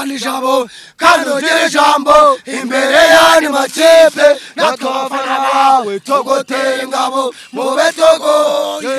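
Male voice chanting a football supporters' song, in long held notes with short breaks between phrases.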